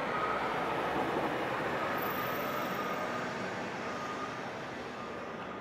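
City street traffic: a car drives past close by and a tram runs along behind it, a steady rush of road noise that slowly fades, with a faint thin whine over it.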